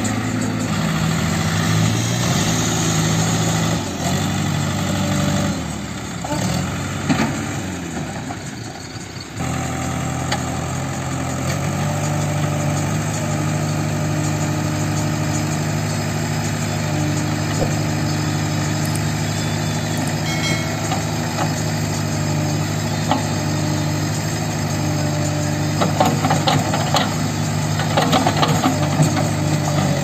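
JCB backhoe loader's diesel engine running under load. Its note shifts and dips in the first ten seconds or so, then holds steady. Clicks and cracks come near the end as the backhoe bucket tears a bush out by its roots.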